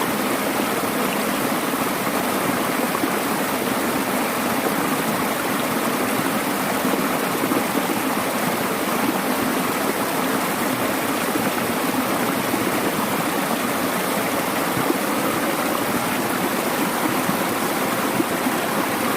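Mountain stream flowing over rocks in a valley: a steady, even rush and babble of water.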